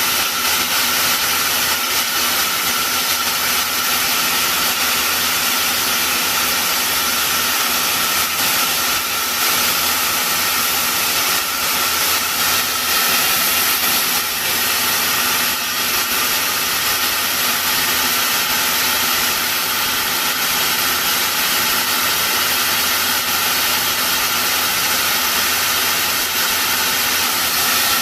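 Steady hissing and droning of a 6 kW robotic fiber laser welding machine at work, unbroken throughout.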